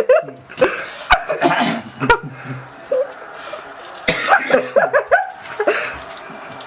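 A person with a tickly cough coughing in short bursts, a sharp cough about a second in and another about two seconds in, then a further run of coughing mixed with voice around four to six seconds in.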